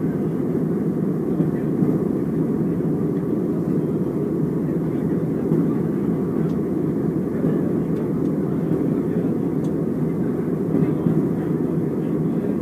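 Steady, even cabin noise of an Airbus A321 airliner in cruise: a low drone of the engines and the air rushing past the fuselage, heard from a window seat.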